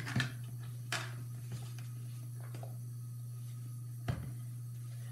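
A few brief knocks and soft rustles from handling a plastic bottle of isopropyl alcohol and a wad of paper towels: one near the start, one about a second in, and one about four seconds in. All of it sits over a steady low hum.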